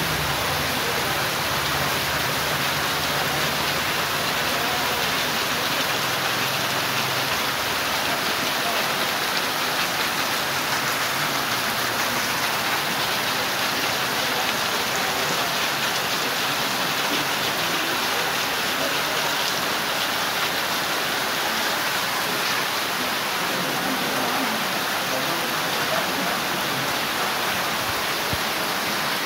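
Torrential rain falling steadily: a dense, even rush of rain on the ground that doesn't let up.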